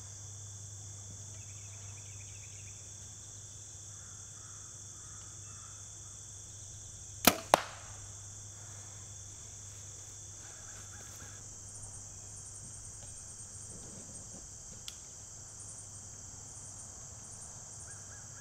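An arrow shot from a bow striking a target of foam and a deer shoulder blade: two sharp cracks about a quarter second apart, about seven seconds in. Insects drone steadily throughout.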